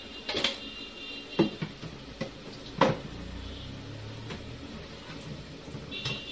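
Kitchen containers and jars being handled, picked up and set down on a stone countertop: a few sharp clacks and knocks, the loudest about three seconds in, with softer ones after.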